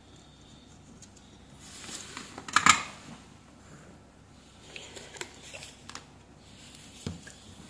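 Soldering iron and copper desoldering braid scraping and clicking over a circuit board's pads, with a louder scrape about two and a half seconds in and a few small clicks later.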